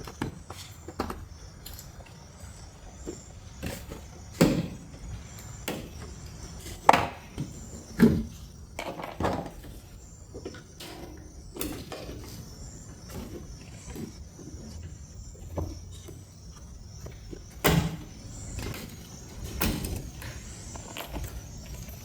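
Plastic push rivets being pried out of a pickup's tail light with a trim removal tool: scattered clicks, snaps and knocks of plastic, the loudest about seven, eight and eighteen seconds in.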